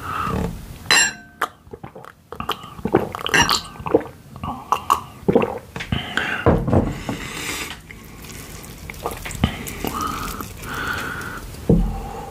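Close-miked gulping of water from a glass mug, with clinks of the glass and wet mouth sounds. Near the end a wooden spoon knocks and scrapes against the pan of fried rice.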